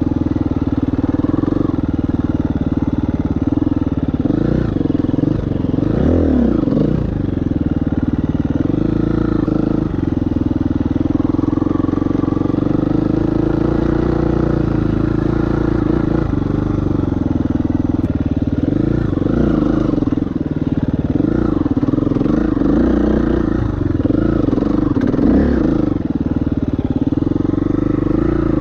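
KTM 350 EXC-F's single-cylinder four-stroke engine running under riding load, its revs rising and falling again and again with throttle and gear changes.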